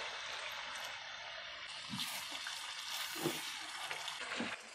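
Chicken and masala sizzling steadily in a hot karahi as about half a cup of water is poured in, with a few faint short sounds about two and three seconds in.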